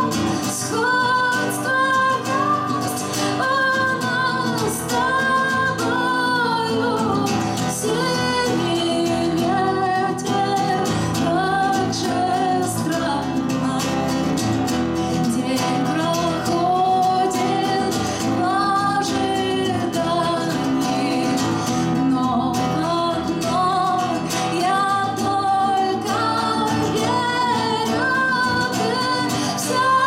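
A woman singing a slow song while accompanying herself on acoustic guitar, plucking the strings.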